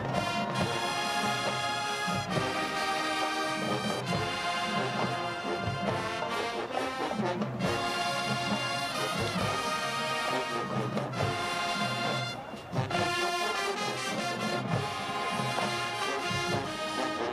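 HBCU marching band playing a loud, brass-heavy tune with trombones and trumpets over a steady drum beat. About twelve seconds in, the sound drops briefly, then comes back in with a sharp, loud hit.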